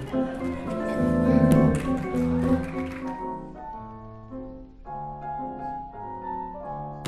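Instrumental background music, busy and dense with sharp clicks for about the first three seconds, then thinning to a sparse piano melody of separate notes.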